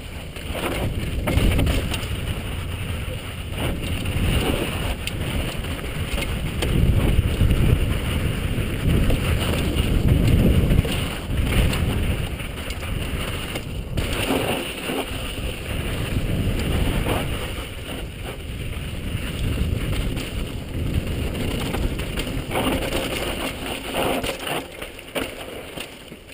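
Wind buffeting the microphone and mountain bike tyres rolling over loose, dusty dirt and rock on a fast downhill run, with scattered knocks and rattles from the bike over bumps. The rush swells loudest around the middle.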